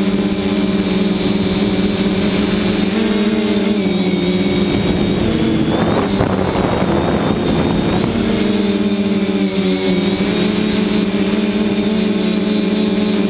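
Multirotor drone's electric motors and propellers running close by, a steady hum whose pitch shifts slightly a couple of times. A rush of air noise rises over it from about six to eight seconds in.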